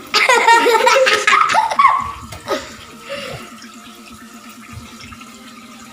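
Tap water running into a wash basin, with a loud burst of laughter and voices in the first two seconds.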